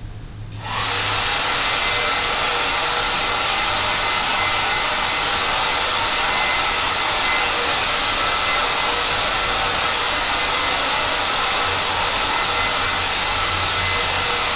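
Hair dryer heard from another room, coming up to full blast about a second in and blowing with a steady rushing hiss and a faint high whine, then cutting off at the end.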